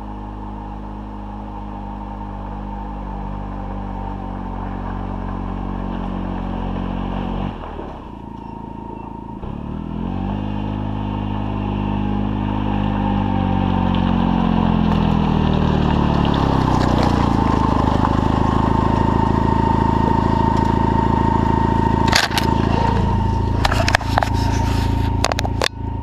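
Side-by-side utility vehicle's engine running and growing steadily louder, its pitch sweeping up and back down near the middle. In the last few seconds, a handful of sharp knocks and scrapes as the fallen camera is picked up.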